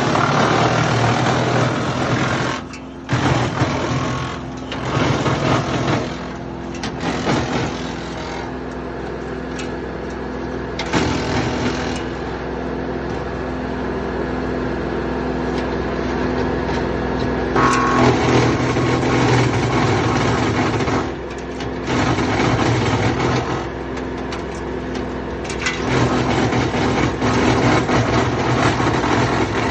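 Wood chipper running with a steady engine hum, breaking into louder, rougher spells of chipping as logs are fed through: at the start, again about four to six seconds in, and twice more in the second half.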